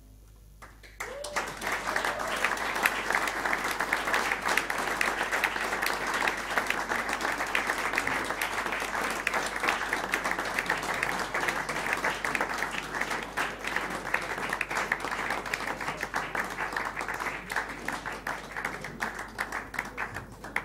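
Audience applause breaks out about a second in, once the band's last notes have faded, and carries on steadily, thinning a little near the end.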